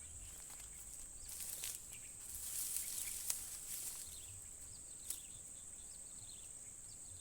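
Insects droning in one steady high tone, with faint bird chirps. From about one to four seconds in, a rustling hiss swells and fades, with a sharp click near its end and another about five seconds in.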